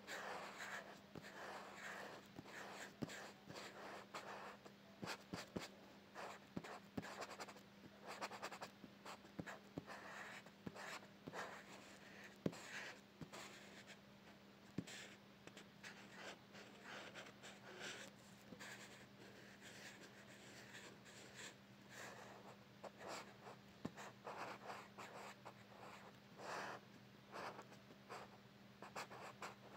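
Faint scratching of a graphite pencil on paper, in many short, irregular strokes as lines are drawn, with a few sharp clicks. A faint steady low hum sits underneath.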